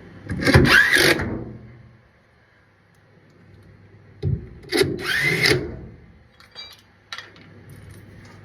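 Power drill with a 7 mm hex driver running long screws home, two bursts of the motor, each with a rising whine, about four seconds apart. A few light clicks follow near the end.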